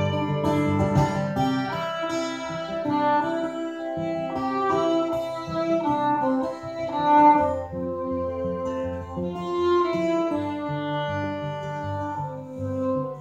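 Fiddle and acoustic guitar playing an instrumental passage of a folk song together, the bowed fiddle carrying the melody over the guitar's plucked accompaniment.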